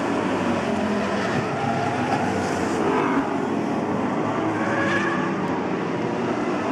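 Street stock race cars running at speed around the oval: a steady, loud engine din with the pitch rising and falling as cars sweep past.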